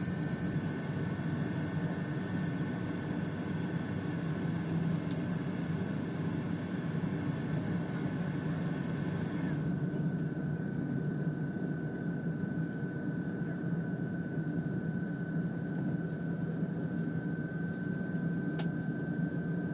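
Cabin noise of a Pilatus PC-12's single PT6A turboprop: a steady low drone with a thin high whine held over it. About halfway through, the hiss above the whine drops away and the whine dips slightly in pitch.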